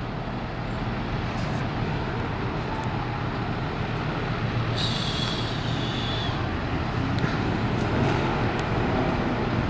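Steady street traffic noise, with a brief high-pitched squeal about five seconds in.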